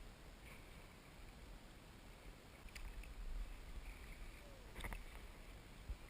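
Faint water sounds of a kayak being paddled, with two light knocks in the middle.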